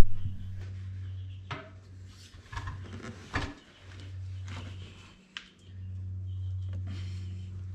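Steel tire irons clinking and scraping against a steel tractor wheel rim and the rubber tire bead, a handful of separate knocks and scrapes as the bead of a new rear tractor tire is levered over the rim. A steady low hum runs underneath.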